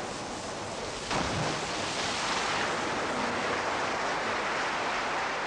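A diver hitting the pool water: a sudden splash about a second in, followed by a steady rushing of churned water over the film's background hiss.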